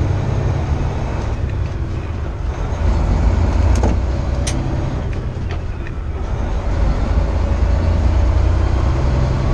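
Semi-truck diesel engine and road noise heard from inside the cab, a steady low rumble that swells as the truck pulls, running with no turbo boost because the turbocharger has failed. A couple of brief clicks come about four seconds in.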